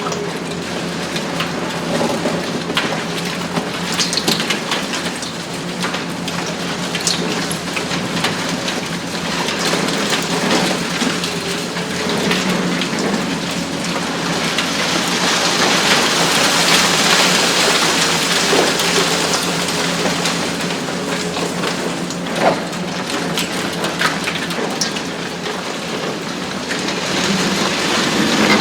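Demolition with a 150-tonne Hitachi ZX870-3 XXL long-front excavator and its hydraulic shear: broken concrete and debris crackling and rattling down in a continuous rush with scattered sharp cracks, over the steady hum of the excavator's engine. The rush grows brighter and louder about halfway through.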